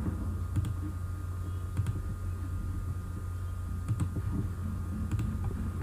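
A few sharp, separate clicks of a computer mouse, over a steady low hum.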